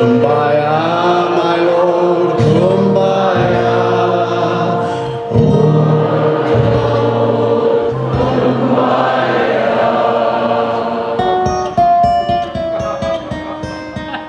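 Folk song sung over a strummed acoustic guitar, with long held notes. About eleven seconds in the singing stops and the guitar plays on alone in short picked notes.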